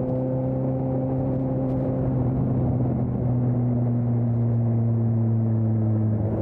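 2020 Suzuki GSX-S750's inline-four engine through an aftermarket Storm exhaust, running steadily while riding, its pitch easing down slightly in the first two seconds.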